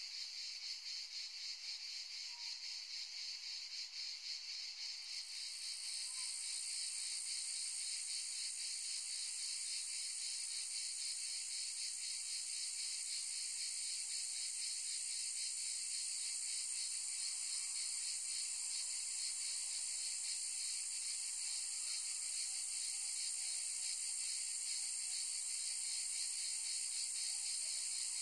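Cicadas singing in a dense, steady chorus: a high, fast-pulsing buzz. About six seconds in, a higher-pitched voice joins and the chorus grows a little louder.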